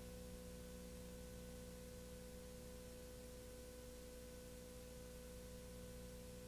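Near silence: a steady faint hum with hiss.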